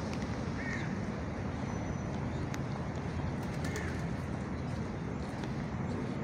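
Two faint, short bird calls, about a second in and again near four seconds, over a steady low background rumble.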